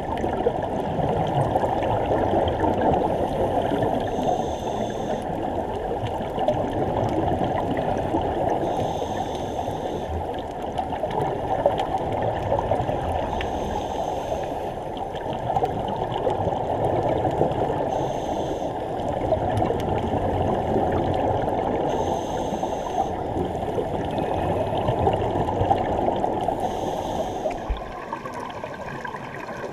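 Muffled underwater sound heard through a GoPro's waterproof housing: a steady dull rush of moving water and scuba divers' bubbles. A brief higher hiss recurs about every four to five seconds. The rush fades near the end.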